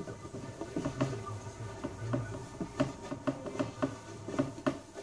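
Hands handling a painted plastic motorcycle fairing, giving irregular light taps and knocks as it is gripped and rubbed.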